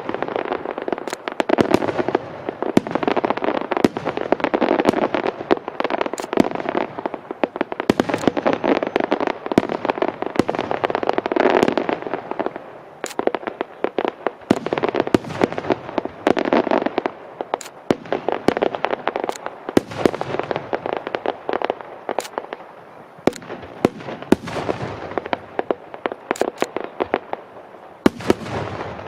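Aerial fireworks display with shells bursting one after another. Dense sharp crackling and bangs ride over a din that swells and fades every few seconds.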